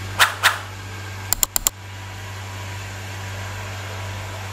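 Ice-plant refrigeration machinery, a Bitzer semi-hermetic compressor and its electric motors, running with a steady hum. Two loud sharp knocks about a quarter second apart come near the start, and a quick run of four sharp clicks follows about a second and a half in.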